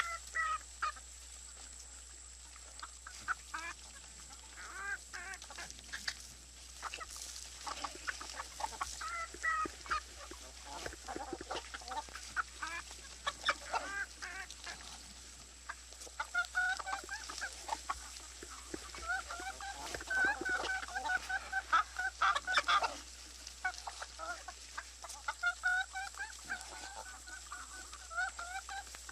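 Farmyard poultry calling: scattered short calls at first, then a dense run of quickly repeated short calls through the second half.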